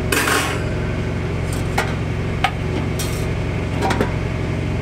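Several sharp metallic clinks and knocks as the Traeger Ranger pellet grill's metal grate and inner plate are handled and lifted out, over the steady hum of a running generator.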